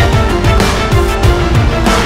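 Loud background music with drum hits.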